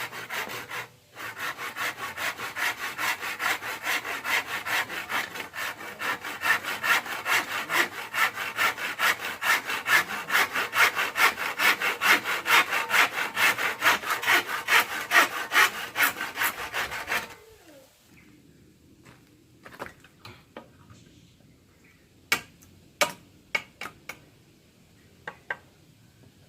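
Hand saw cutting through bamboo in steady back-and-forth strokes, a few a second. It stops about two-thirds of the way in. A few sharp light clicks and taps follow.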